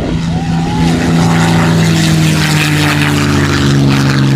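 Propeller aircraft engine droning steadily, its pitch falling slowly as the plane flies past.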